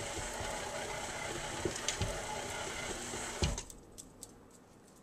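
KitchenAid stand mixer running, its flat beater working thick peanut butter cookie dough, then switched off about three and a half seconds in; a few faint clicks follow.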